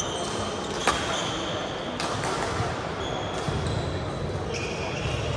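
Badminton rally sounds in a sports hall: two sharp racket strikes on the shuttlecock, one at the start and one about a second in, with short shoe squeaks on the court floor over a constant hall din.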